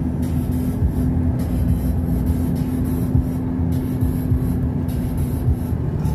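Steady low rumble of a car's engine and tyres heard from inside the cabin while driving on a highway, with a steady low drone that drops away about five seconds in.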